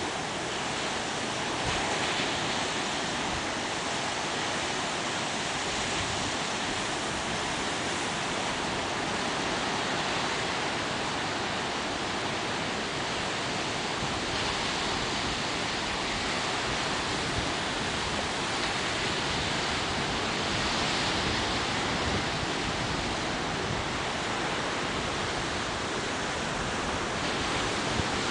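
Atlantic Ocean surf: a steady wash of breaking waves that swells a little every several seconds.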